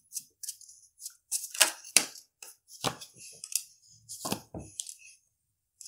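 Tarot deck being shuffled by hand: a run of irregular card snaps and slaps, the sharpest about two seconds in and again just after four seconds.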